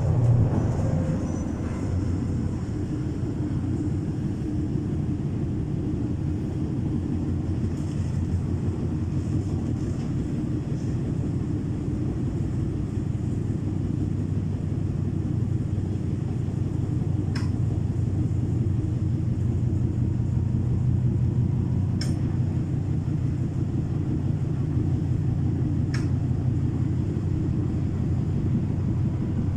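MTR M-Train electric multiple unit running on the Disneyland Resort Line: a steady low rumble with a constant hum, and three brief sharp ticks in the second half.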